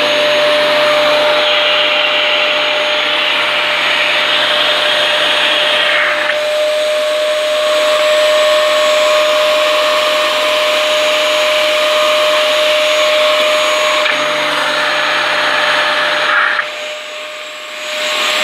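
Dyson DC14 upright vacuum cleaner running on its newly fitted motor: a steady high whine over loud rushing airflow, with the clutch-driven brush bar spinning. The rushing noise changes in tone a few times along the way.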